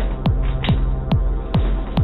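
Electronic dance music with a steady kick drum, a little over two beats a second, over a low bass drone.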